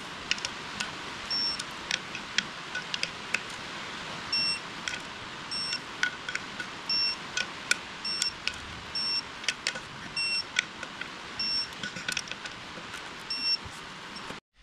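Digital torque wrench giving short, high beeps roughly once a second as the clutch pressure plate bolts are pulled up to torque, with light ratchet clicks in between.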